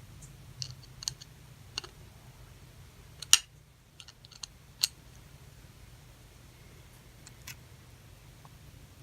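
Irregular small clicks and taps from a faucet cartridge and its small parts being handled while a new flat washer is fitted, the sharpest tap about a third of the way in, over a faint steady low hum.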